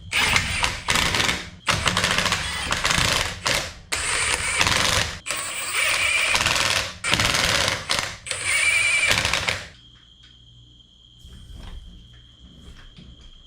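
Impact wrench running in about six short rattling bursts, tightening the suspension bolts on the truck's front end; it stops about two-thirds of the way through.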